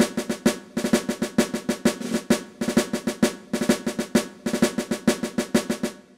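Intro music on snare drum: a drum cadence of quick strokes and rolls in short runs with brief pauses, stopping just before the end.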